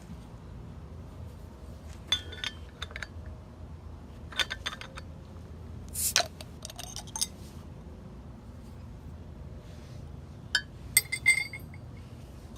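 Small metal pieces clinking and rattling against each other in four short bursts of handling, with a bright ringing tone after the sharpest knocks; the loudest clinks come near the end.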